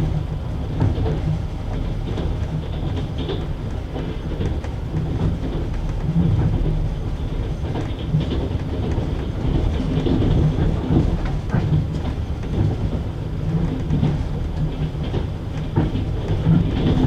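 Passenger train wheels clattering over rail joints, heard from aboard a carriage: a steady low running rumble with irregular knocks.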